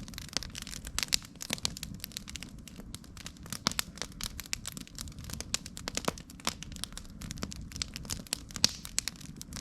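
Campfire of burning wood crackling and popping irregularly, with a steady low rumble of the flames underneath.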